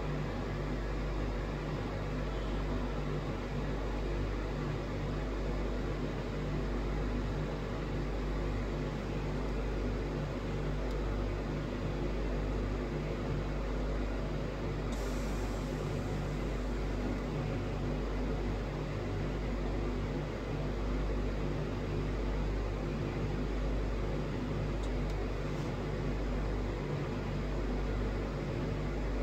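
Steady low mechanical hum with a hiss over it, unchanging, inside a car cabin, with a short burst of high hiss about halfway through.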